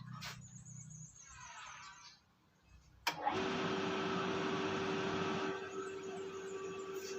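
An electric motor starts suddenly about three seconds in and runs with a steady whirring hum, easing slightly a couple of seconds later.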